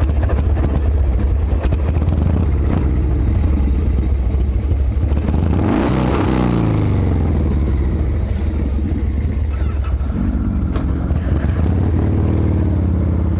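Motorcycle riding at speed, heavy wind rumble on the rider's microphone over the engine. The engine note swells and falls about six seconds in, with smaller rises and falls of revs later.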